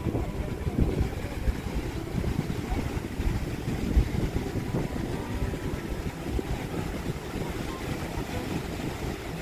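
Wind buffeting the phone's microphone in an irregular low rumble, with the surf of the sea washing underneath.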